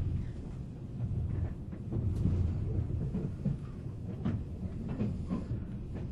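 Running noise heard inside a 485-series electric multiple unit's motor car (MoHa 485): a steady low rumble from the wheels and running gear, with a few scattered knocks from the rails.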